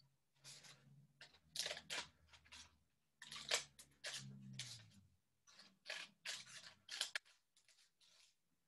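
Scissors snipping through paper in a run of quick, irregular, faint cuts, trimming small triangles out of a leaf shape; the snipping stops about seven seconds in.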